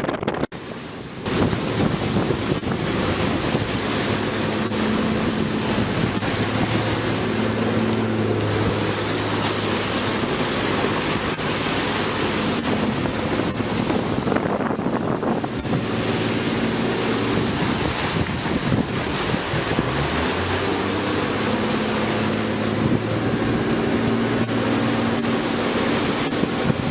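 Wind buffeting the microphone over the rush of the sea against a moving fishing boat, with the boat's engine droning steadily underneath.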